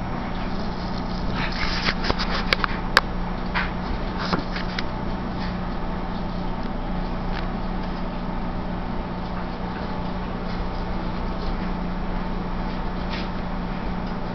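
Steady low hum with room noise. A few sharp clicks and light knocks come about two to five seconds in, and one more near the end.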